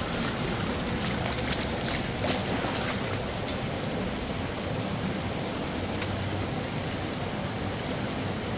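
River water rushing steadily, with a few light clicks or knocks in the first few seconds.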